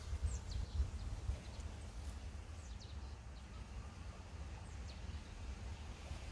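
Low, uneven rumble of wind or handling on the microphone, with faint, scattered short high chirps of small birds.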